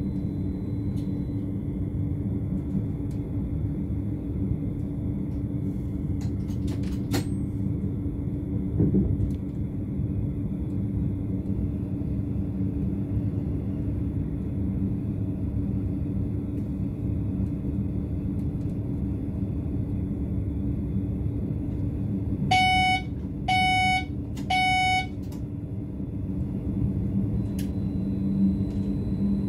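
BLS RABe 515 electric multiple unit running at speed, heard from inside the driver's cab as a steady rumble with a low hum. About 23 seconds in, three short electronic beeps about a second apart sound from the cab equipment.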